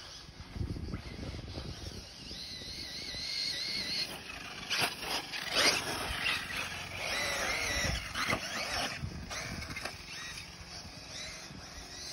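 Radio-controlled off-road buggy running on the track, its motor whine wavering up and down in pitch, with a few sharp knocks and rattles about five seconds in.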